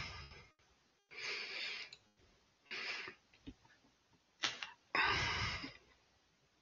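Several short puffs of breath into a close headset microphone, about five in all, with the longest and loudest exhalation about five seconds in.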